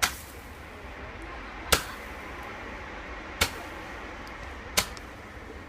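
Fireworks going off: four sharp bangs, roughly a second and a half apart, over a steady hiss.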